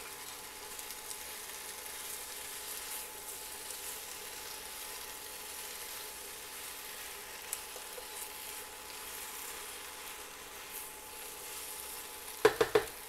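Bow-tie pasta sizzling quietly in a frying pan on an induction cooktop while it is stirred, with faint scraping ticks of the utensil. Near the end a quick few sharp knocks of the utensil against the pan.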